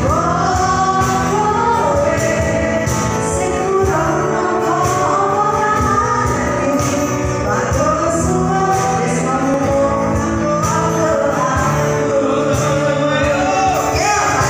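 Two women singing a duet into microphones over a live band of guitars and keyboard, amplified through PA speakers in a large, reverberant hall.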